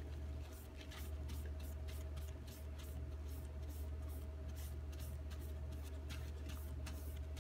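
Folded paper towel rubbing silver polish up and down a 1095 carbon steel knife blade: a soft scrubbing in quick, irregular strokes, several a second. The polish is taking off most of a forced patina to leave a thin, more even gray layer.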